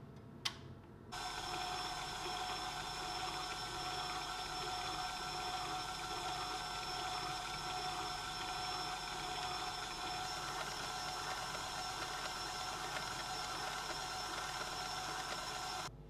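A KitchenAid Classic stand mixer's motor runs steadily, with a whisk beating cream cheese frosting in a steel bowl. It starts abruptly about a second in and cuts off just before the end. A single sharp click comes just before it starts.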